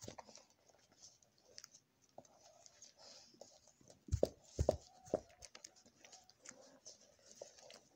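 Newborn puppies suckling at their mother's teats: soft irregular clicking and smacking. A few louder bumps come about four to five seconds in, with a short squeak just after.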